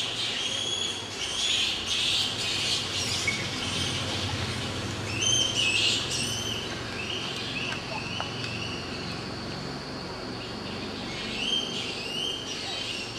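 Animal calls in the forest canopy: clusters of short, high notes about a second in, again around five to six seconds in, and near the end.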